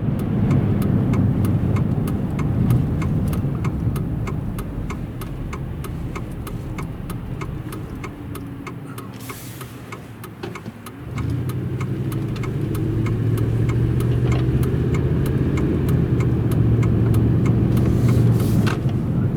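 Car engine and road noise heard from inside a moving car. The engine dies down for a few seconds, then about eleven seconds in it grows louder again with a steady hum as the car picks up speed. A steady ticking about twice a second runs underneath.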